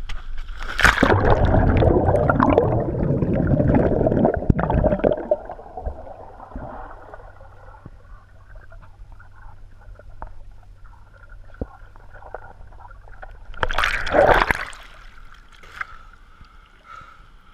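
Water splashing and bubbling as a swimmer ducks under in a swimming pool, then a muffled quiet stretch heard from under the water with a faint low hum and a few small ticks, then a short burst of splashing as he breaks the surface near the end.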